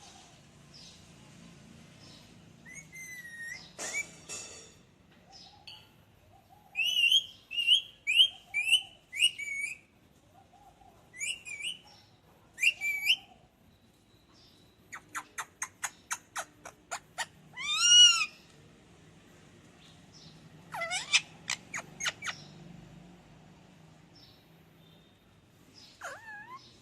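Pet parrot calling in short, sharp, whistled notes, in runs of repeated chirps with a fast series of clicks partway through.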